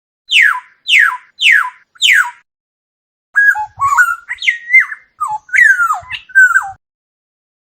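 Oriole singing: four quick falling whistles, then after a short pause a run of fluting, gliding whistled phrases.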